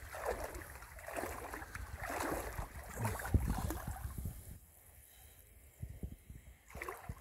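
Legs wading through knee-deep floodwater, sloshing and swishing with each stride, about one stride a second. The sloshing fades about four and a half seconds in, leaving a quieter stretch with a few faint clicks.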